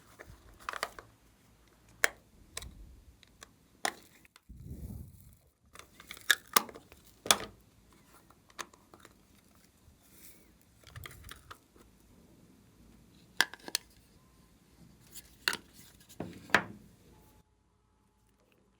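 Glossy slime being worked by hand, giving scattered sticky clicks and crackles with a soft low thud about five seconds in. The sound cuts off abruptly shortly before the end.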